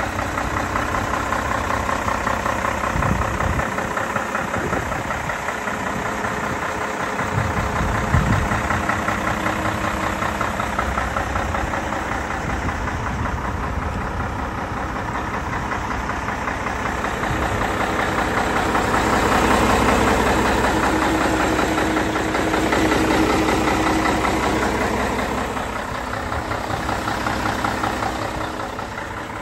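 Scania 113 320 truck's 11-litre straight-six diesel idling steadily, growing louder for a few seconds past the middle.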